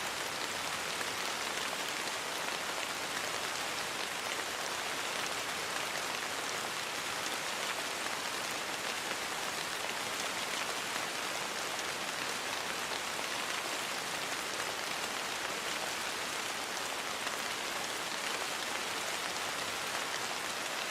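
Steady rainfall: an even, unbroken hiss of many drops with fine pattering detail, no thunder.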